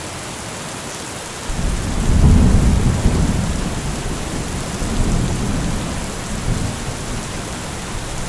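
Thunderstorm: steady rain hiss, then about a second and a half in a long roll of thunder begins, rumbling in several swells to the end.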